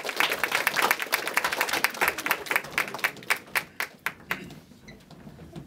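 Applause: dense clapping that thins out and dies away about four and a half seconds in.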